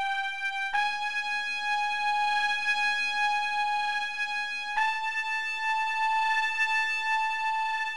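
Computer score playback of a cornet in F: three long sustained notes climbing a half step at a time, changing about a second in and again about five seconds in, the last two being G-sharp and A at the top of a half-step scale.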